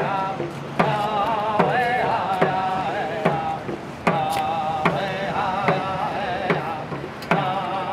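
Music: a sustained, wavering melody line over a steady drum beat of a little more than one stroke a second.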